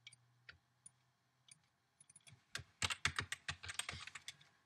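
Typing on a computer keyboard: a few scattered key clicks, then a quick run of keystrokes from about halfway through.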